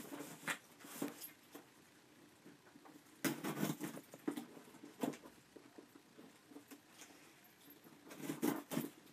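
Scratching, scraping and tearing at the tape and flaps of a cardboard shipping box as it is worked open with fingers and a key, in irregular bursts with scattered clicks, loudest about three seconds in and again near the end.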